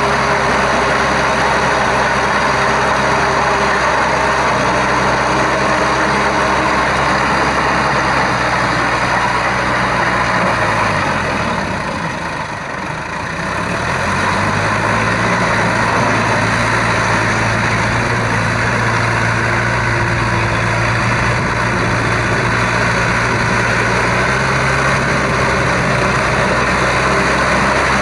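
Shibaura V52F tractor's 52-horsepower four-cylinder diesel engine running steadily under load as it pulls a rotary tiller through wet paddy soil. Its engine note drops briefly about halfway through, then picks back up.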